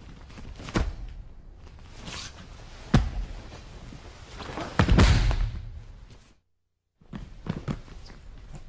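A judo-style throw on a gym mat: a person's body slams onto the mat with a loud thud about five seconds in, with bare-feet shuffling and smaller knocks around it. The sound cuts out for a moment afterwards.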